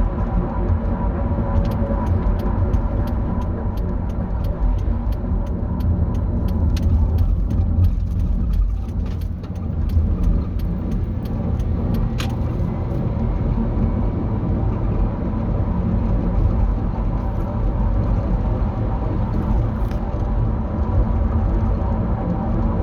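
2008 Dodge Grand Caravan on the move: a steady low drivetrain and road rumble with humming tones, the grinding noise the owner wonders may be worn differential bearings in the transmission, which a new right drive axle has not cured. A run of quick light ticks, about three a second, sounds through the first half.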